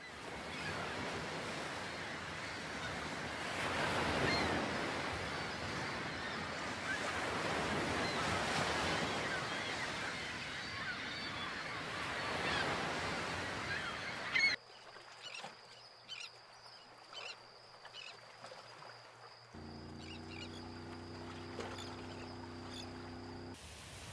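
Surf washing on the shore with many birds calling over it. About halfway through it cuts to a quieter sound with a steady high whine and scattered faint clicks, and low sustained tones come in near the end.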